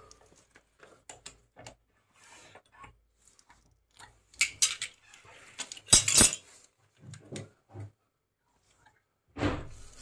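Scattered metallic clinks and knocks of a plumbing fitting and tools being handled at a water pipe, with a louder clatter about four and a half seconds in and two sharp knocks about six seconds in.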